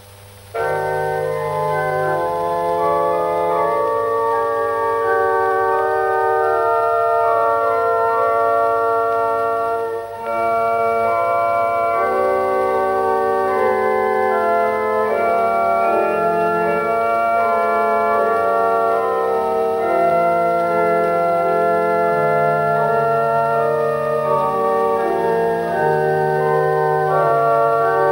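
Pipe organ playing slow, held chords over shifting bass notes. It starts suddenly about half a second in and dips briefly about ten seconds in.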